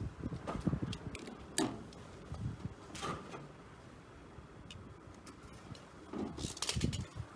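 Irregular clicks, taps and light knocks of hand work with tools and fittings, with a quick cluster of them near the end.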